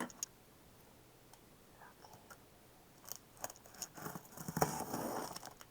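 Near silence for about three seconds, then a few light clicks and a stretch of rustling as a cardboard box is handled to be opened.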